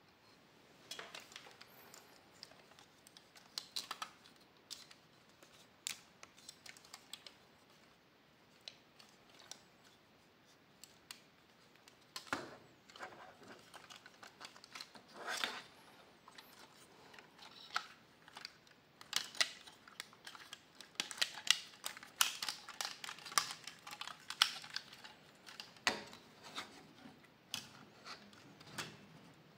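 Hard plastic parts of a transforming toy robot clicking, snapping and rubbing as they are folded and locked into place by hand. The clicks come in irregular runs and are busiest and loudest in the second half.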